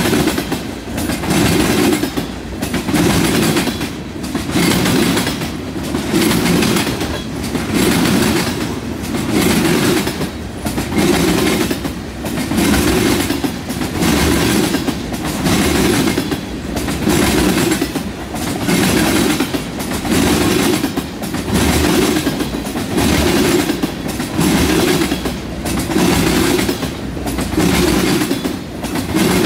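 Freight train of tank cars and covered hoppers rolling past close by: a steady rumble and clatter of steel wheels on the rails that swells in a regular beat about every second and a half as each car's wheelsets go by.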